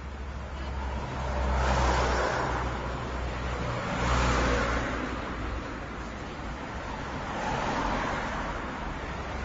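Small-town street traffic: cars passing one after another, their tyre and engine noise swelling and fading three times, about two, four and eight seconds in, over a steady low rumble.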